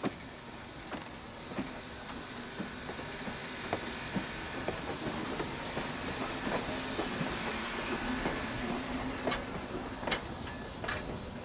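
Skookum #7 steam locomotive rolling slowly past, hissing steam, its wheels clicking over rail joints about once a second. The hiss swells as the engine draws level, and near the end the passing flatcars add quicker clicks and clanks.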